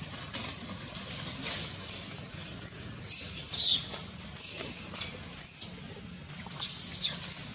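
Baby macaque screaming in fear, a run of about ten short, high-pitched squeals that each fall in pitch, coming one or two a second.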